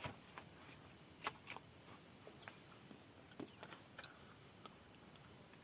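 Faint steady high-pitched chirring of insects in the field, with a few scattered sharp clicks and snaps.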